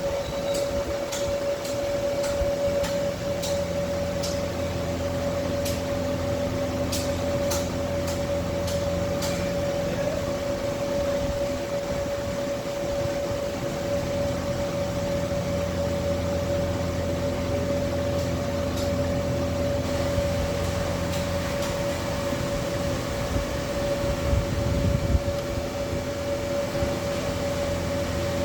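Steady electrical hum with a held mid-pitched whine from a running Fuji FRENIC HVAC variable-frequency drive setup. A run of small sharp clicks comes in the first ten seconds or so.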